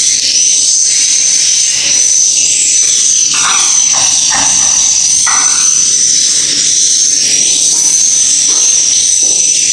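Dense, high-pitched chorus of white-nest swiftlets chirping inside a swiftlet nest house, loud and continuous.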